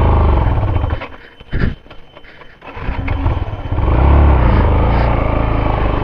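Motorcycle engine revving on a rough dirt track. It is loud for the first second, drops away briefly, then builds again to a peak near the middle.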